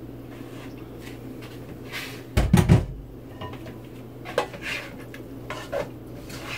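Kitchen utensils and cookware being handled while bread-cube stuffing is stirred in a pot: a loud cluster of knocks with a heavy thud about two and a half seconds in, then scattered light clinks and scrapes of a spatula in the pot, over a steady low hum.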